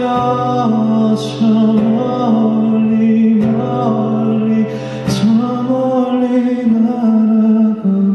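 Live band music: a male voice holding long notes over guitar, with percussion accents about a second in and again around five seconds.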